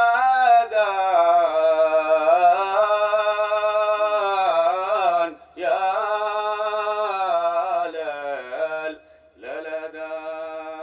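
A man's voice singing alone in long, ornamented held notes that waver and slide in pitch. The singing breaks twice for a breath, and the last note is quieter.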